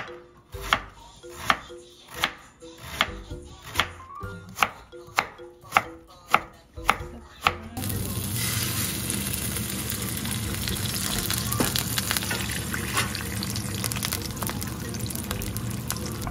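A light background tune of evenly spaced plucked notes, then, about eight seconds in, hot oil sizzling in a frying pan with a steady loud hiss as egg fries in it.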